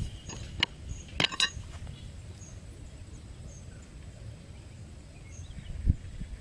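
Outdoor ambience with faint high chirps repeating every half second or so. There are a few sharp clicks about a second in and a single low thump near the end.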